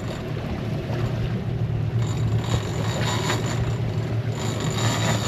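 Fishing boat's engine running steadily at slow trolling speed, a low even hum, with a hiss of wind and water over it.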